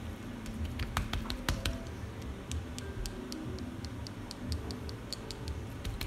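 Plantain slices frying in hot oil in a pan, with many scattered sharp pops and ticks.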